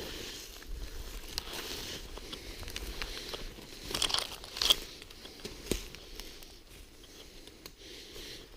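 Crinkling, rustling handling noise with scattered sharp crackles, loudest in a cluster about four to five seconds in.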